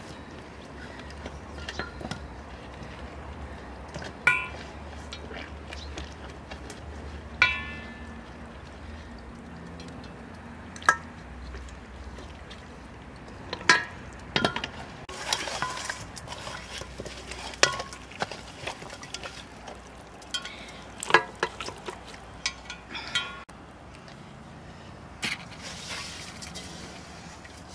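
Raw whole chickens being handled in and set down into a stainless steel bowl: sharp clinks and knocks against the metal bowl every few seconds, some ringing briefly, with soft wet handling between them. Near the end, marinade is poured over the chickens.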